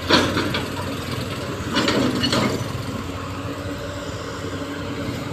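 Excavator's diesel engine running steadily, with two louder rasping spells, just after the start and again about two seconds in.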